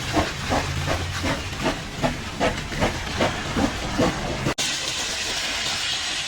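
High-pressure washer spray hissing, with a regular pulsing about two and a half times a second. After a sudden break about four and a half seconds in, the spray continues as a steadier, brighter hiss.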